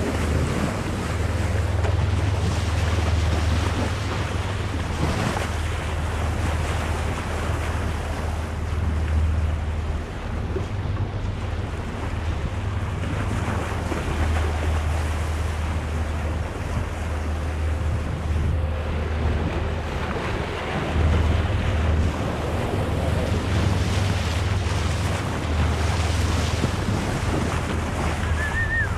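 Wind buffeting the microphone in gusts over the steady rush of sea water and waves.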